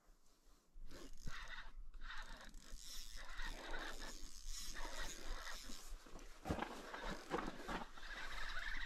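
Close rustling and scraping of jacket sleeves and hands handling a spinning rod and its line, starting about a second in, with small scattered clicks.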